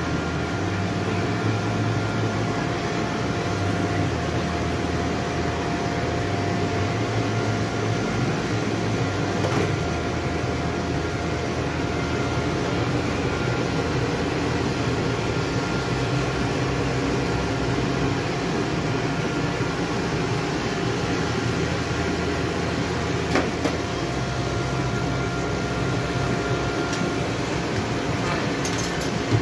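A small metal-melting furnace's burner running with a steady, even rush and a faint steady hum while copper and tin melt for bronze casting. There are a couple of faint clicks along the way.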